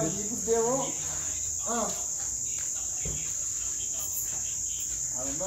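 Steady high chirring of crickets, with a few murmured words in the first two seconds and a single soft knock about three seconds in.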